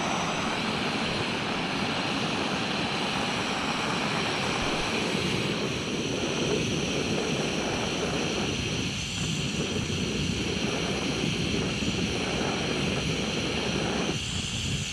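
Jobsworth X3 stove's gas burner running steadily under a pot of water that is at a good simmer and close to a full boil.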